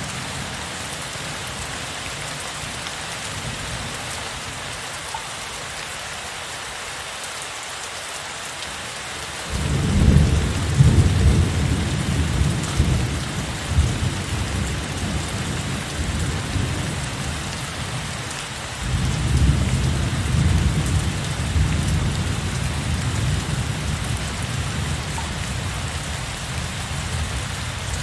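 Heavy rain falling steadily, with two long rolls of thunder: the first breaks suddenly about a third of the way in, and the second begins about two-thirds of the way in. Each slowly dies away.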